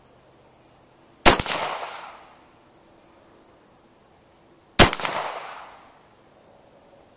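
Two single shots from a Cobray M-11 9mm semi-automatic pistol, about three and a half seconds apart, each echoing away over about a second.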